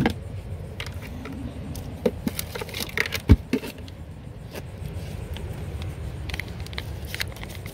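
Rummaging in a storage compartment and handling a candy-bar wrapper: a cluster of clicks and knocks in the middle, the loudest a single sharp knock, over a steady low rumble.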